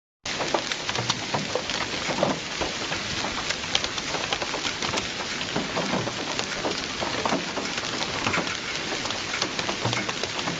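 Hailstorm with heavy rain beating down: a dense, steady hiss studded with many sharp, irregular ticks of hailstones striking.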